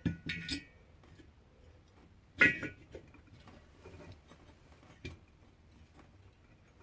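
Metal parts of a diesel heater's burner clinking and knocking as they are handled and refitted. A few light clicks at the start, one sharp metallic clink with a short ring about two and a half seconds in, then a couple of faint taps.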